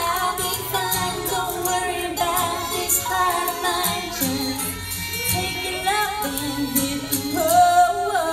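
A woman singing a song into a microphone over an instrumental backing, ending on a long held note.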